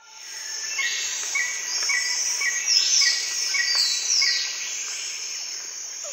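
Bush ambience: birds calling over a steady high insect drone. One bird repeats a short chirp about twice a second, and a few falling whistles come in the middle.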